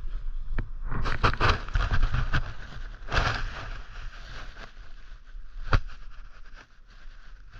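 Hands working a bicycle seat post and clamp with an Allen key: scraping and rustling for a few seconds, then scattered clicks, one sharp metallic click near six seconds in.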